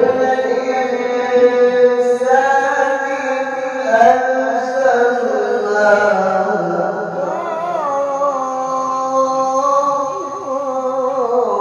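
A male qari reciting the Quran in melodic tilawah style into a microphone. He holds one long, ornamented phrase whose pitch steps up early, wavers in the middle and dips briefly near the end.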